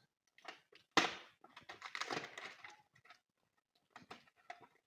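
A sharp plastic clack about a second in, then rustling and light clicks as a plastic electrical drop box is handled.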